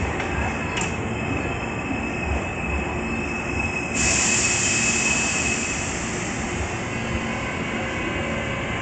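Hankyu 8300-series electric train starting off from the platform: about four seconds in, a sudden loud hiss of air as the brakes release, then the train begins to roll with motor and wheel noise.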